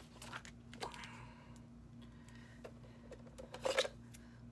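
Scattered light clicks and taps of paper and craft supplies being handled on a cutting mat, with a short burst of louder clicks near the end.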